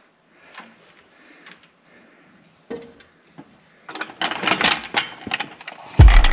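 Old steel floor jack being worked under a truck: a few faint clicks and a knock, then a louder run of metal rattling and clanking in the last couple of seconds. A music track with heavy drum beats comes in at the very end.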